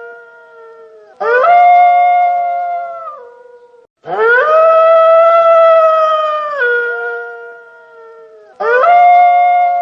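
Wolf howling: three long howls, about a second in, about four seconds in and near the end, each rising quickly to a held steady pitch, then dropping a step lower and fading away.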